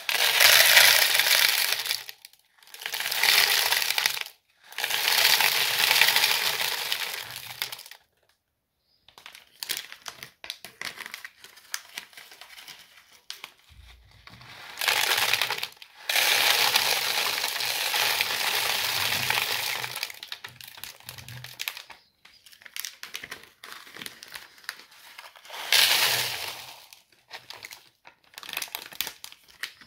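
Citric acid crystals being poured into a plastic cola bottle: a rattle of granules on plastic in several pours a few seconds long, with quieter crackling between them.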